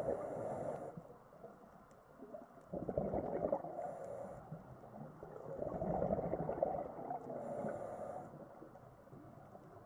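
Underwater recording of a scuba diver breathing through a regulator: a short hiss on each inhale, three times, with a rumbling bubbling of exhaled air swelling between them.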